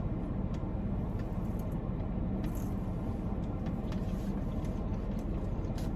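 Steady low rumble of a car interior with the engine running, with a few faint soft clicks of eating.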